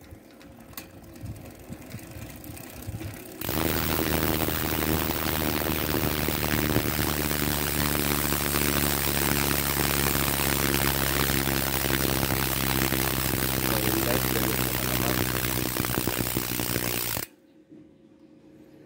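Mountain bike rear hub freewheeling as it is spun: faint ticking at first, then a loud, steady ratcheting buzz from about three seconds in that cuts off suddenly near the end. It shows how noisy the hub is.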